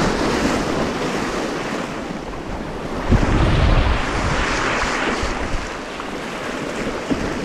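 Sea surf surging and washing over the shore rocks, with wind buffeting the microphone in a low rumble from about three to four seconds in.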